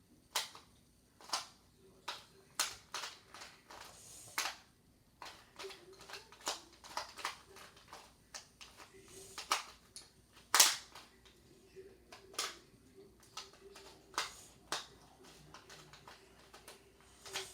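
2x2 Rubik's cube being turned by hand: irregular plastic clicks and clacks as the layers snap round, a few of them sharper and louder.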